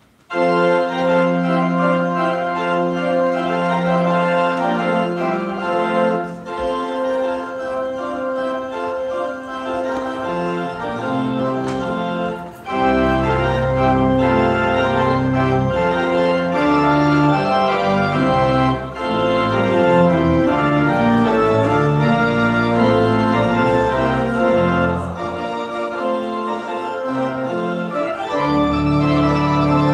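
Pipe organ playing a postlude in sustained full chords that begin suddenly. Deep pedal bass notes come in about twelve seconds in, drop out briefly near the end, then return.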